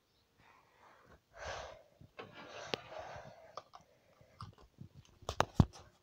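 Handling noise from a phone being moved about: irregular soft rustles and scattered sharp clicks, with a quick cluster of louder clicks about five seconds in.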